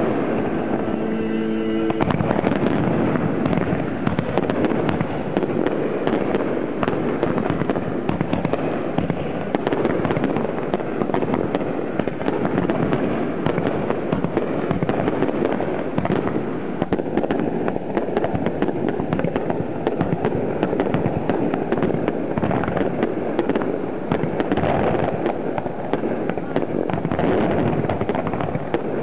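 Fireworks display heard close to the firing site: a dense, unbroken barrage of shells going off, many sharp reports a second at a steady loudness.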